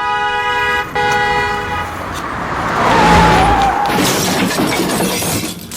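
A car horn gives two long blasts, then a loud rush of noise builds, with a short high squeal about three seconds in.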